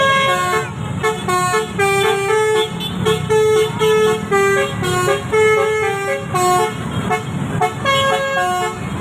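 Bus telolet horn of the basuri type playing a quick melody of short, stepped notes.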